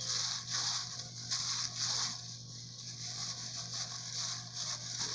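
Plastic-gloved hands kneading soft butter-and-flour dough in a glass bowl: a rhythmic squishing and crinkling of thin plastic gloves with each stroke, over a steady low hum.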